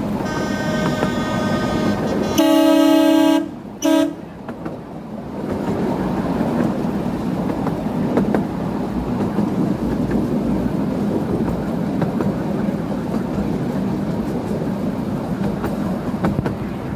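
Miniature railway locomotives tooting as two trains pass: a long multi-note toot, then a louder toot about two and a half seconds in and a short one a second later. After that, the steady rumble of the train running along the track, heard from an open carriage.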